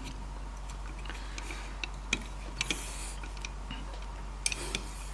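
Scattered light clicks and taps of fingers handling a small circuit board in a metal spring-loaded PCB holder. There is a brief rustle about two and a half seconds in and a quick run of clicks near the end, over a low steady hum.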